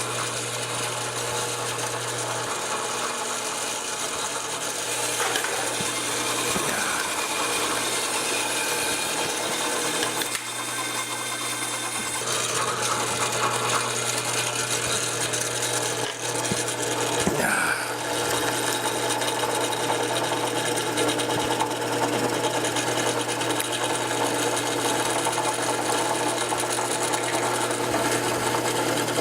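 Craftsman 1-horsepower drill press running steadily with no load, its motor and spindle giving an even hum.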